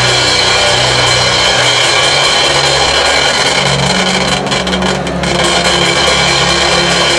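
Church band music of sustained chords over a bass line, the bass note shifting a couple of times, under a congregation praying aloud together.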